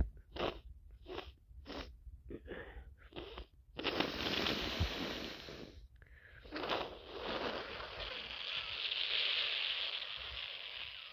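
A person with a congested head cold sniffing: about seven short, quick sniffs in the first few seconds, then two long, noisy blows of the nose, the second lasting about four seconds.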